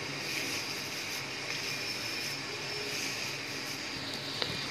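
Steady background hiss, even throughout, with one faint click near the end.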